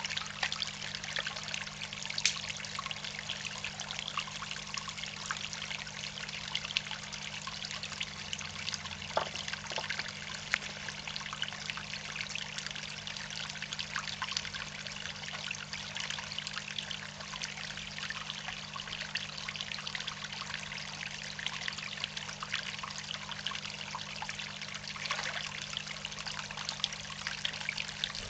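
Water trickling and splashing steadily at the surface of a koi pond, a continuous patter of fine droplets, over a low steady hum.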